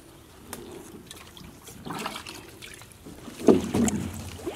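Hands splashing and sloshing in shallow, muddy water among grass while feeling for fish, in irregular bursts that grow loudest about three and a half seconds in.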